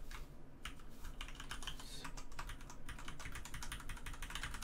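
Typing on a computer keyboard: a quick run of key clicks, broken by a couple of short pauses in the first second or so.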